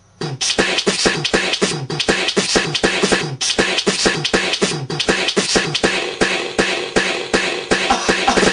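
Beatboxing: fast mouth-made drum sounds, thumps and hissing cymbal-like hits several times a second, spliced together from many short clips. It starts abruptly just after a silence.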